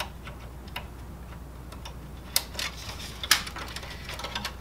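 Sharp plastic clicks and taps from hands working the connectors and housing inside a Kyocera FS-4200/4300 laser printer, scattered at first, then a quick cluster with the loudest click about three seconds in.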